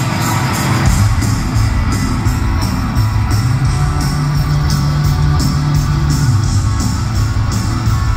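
Live rock band playing an instrumental passage through the hall's PA: strummed electric guitars over bass and drums, with no vocals.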